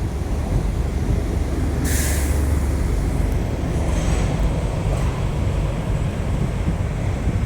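Heavy road traffic passing with a steady low rumble, and a short hiss about two seconds in.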